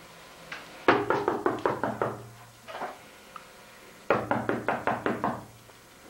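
Rapid rapping on a window pane in two quick bursts of about eight knocks each, the first about a second in and the second about four seconds in.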